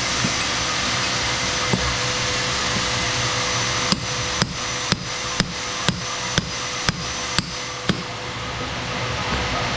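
Hammer strikes, about nine in a row at roughly two a second, over a steady background hum of machinery.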